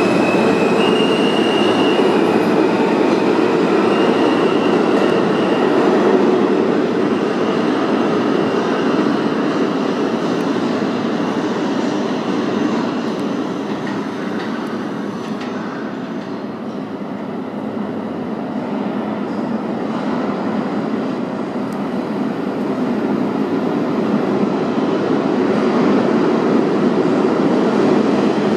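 R160A-1 subway train pulling out of an underground station: steady wheel-and-track rumble with a high motor whine in the first few seconds. The rumble fades, then grows louder again over the last several seconds.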